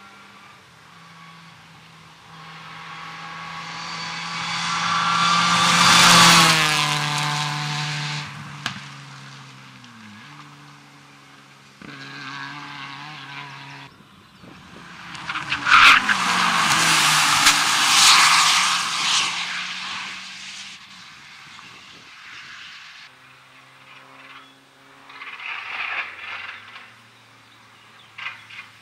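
Rally cars running flat out on a gravel stage: engines revving hard and dropping in pitch as they go past, with the pitch stepping at gear changes and gravel and tyres hissing. Two loud passes come about six seconds in and again around sixteen to nineteen seconds, and another car approaches near the end.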